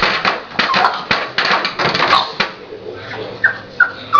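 A dog whining in a few short, high, falling whimpers near the end, after a stretch of noisy scuffling or muffled voice.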